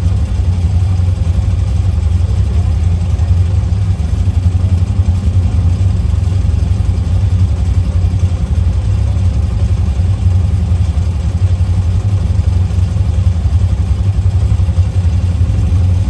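ATV engine running steadily: a constant, loud low rumble with no change in speed.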